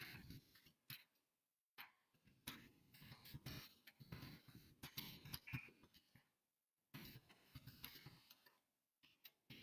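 Faint typing on a keyboard: irregular soft key clicks with short pauses.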